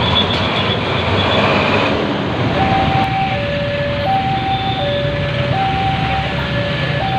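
A passing vehicle's noise, then from about two and a half seconds in a two-tone electronic signal alternating evenly between a high and a low note, each held about three-quarters of a second, over the traffic.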